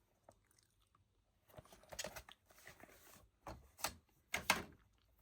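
Plastic Blu-ray jumbo case and its cardboard slipcover being handled: a few short clicks and rustles, in two clusters about two seconds in and again near the end.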